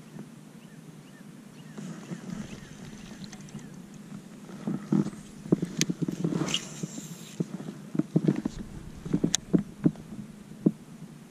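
Knocks and clatter on a fishing boat, thick about halfway through and then scattered sharp raps near the end, over a steady low hum.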